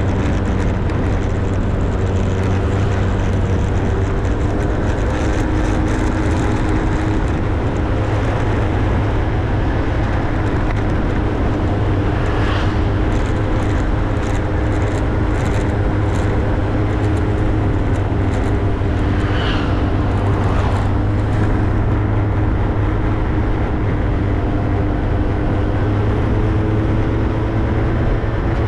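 Motorbike running steadily at cruising speed: an even engine hum under a constant rush of wind and road noise.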